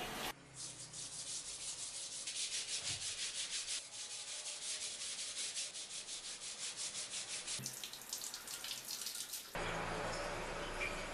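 Steel wool scrubbing a wet, powder-dusted rusty steel dagger blade to strip the rust, in quick back-and-forth rubbing strokes about four or five a second.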